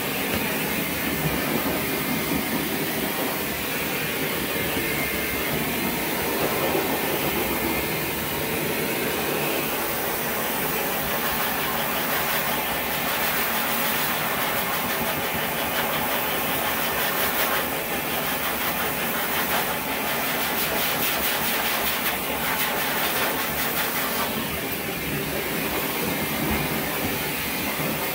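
Dog grooming blow dryer running steadily, a loud even rush of air that changes a little in tone partway through.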